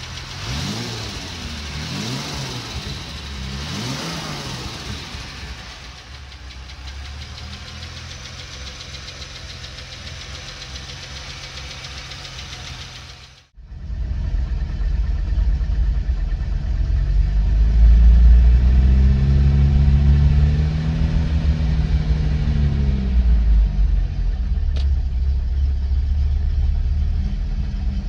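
Jaguar E-Type Series 3's 5.3-litre V12 running, revved by hand at the throttle linkage so it rises and falls back several times in the first few seconds, then idling steadily. After a cut it idles with a louder, deeper sound, with one slow rev up and back down about midway.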